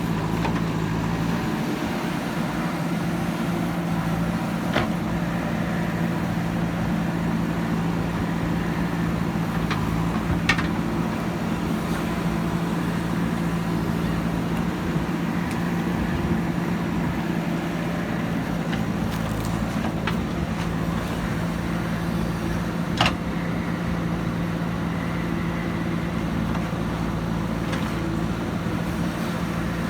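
Diesel engine of heavy earthmoving equipment running steadily under work, with a few sharp metallic clanks, the loudest about twenty-three seconds in.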